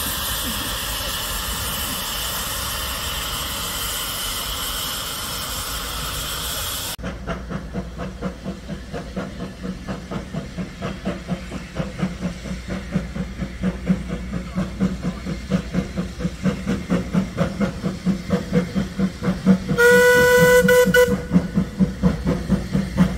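Steam locomotive: first a steady hiss of escaping steam, which stops abruptly about seven seconds in. Then the locomotive works away, its exhaust beats quickening and growing louder as it gathers speed. Near the end the steam whistle gives one short blast.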